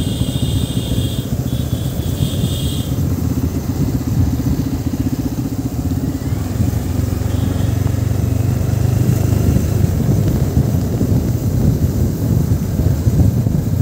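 Motorcycle engine running at a steady cruise, heard from the rider's own bike. A high steady buzz is also there during the first three seconds.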